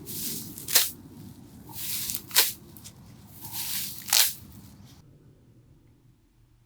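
Three swings of a restored antique farm hand tool, each a short swish ending in a sharp crunch, about a second and a half apart.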